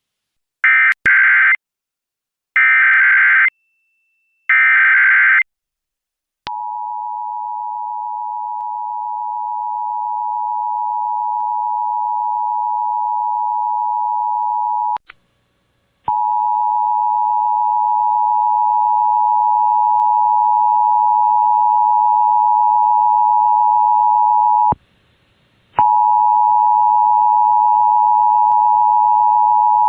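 Emergency Alert System header tones: three short bursts of warbling digital data, then the steady two-tone EAS attention signal. The attention signal drops out briefly twice and picks up again, with a faint hum under its later stretches.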